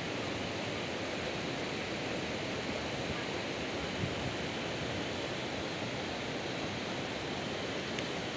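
Steady, even rushing noise, with a brief knock about four seconds in and a faint click near the end.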